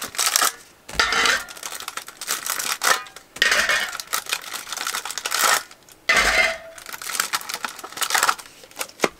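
Thin aluminum foil muffin cups crinkling as they are pulled one by one off a stack, then set down in a cast iron Dutch oven with light metallic clinks. The crinkling comes in about four bursts a second or so apart.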